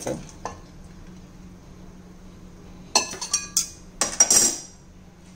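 Stainless-steel pot and pot-gripper tongs clinking and clattering as they are set down, in two short bursts about three and four seconds in, the second louder, each with a brief metallic ring.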